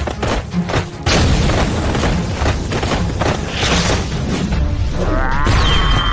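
Cartoon battle sound effects for a fire charge attack: a few sharp hits, then a continuous booming rush of flame, over background music. A wavering high-pitched sound comes in near the end.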